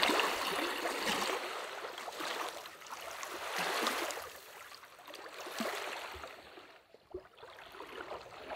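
Small lake waves lapping and washing onto a gravelly shore, swelling and fading every second or two.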